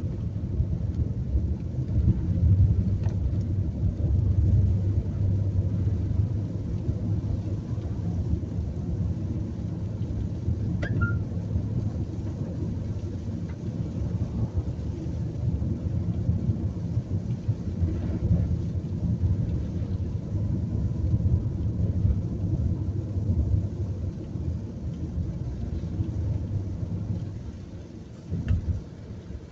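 Steady low rumble of a car driving on a wet road, heard from inside the cabin, with light rain on the windscreen. The rumble eases off near the end.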